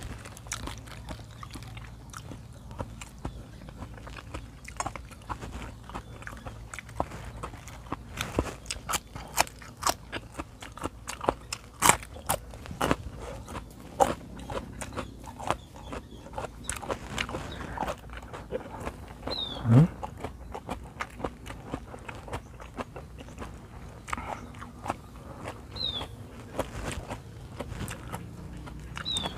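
A man chewing mouthfuls of raw beef liver close to the microphone: many small irregular wet mouth clicks and smacks. A short rising sound, the loudest moment, comes about two-thirds of the way through.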